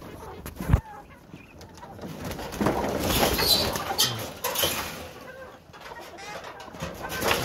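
A flock of chickens in a wire-mesh run clucking and calling, with rustling and scuffling among them. A single sharp knock sounds near the start.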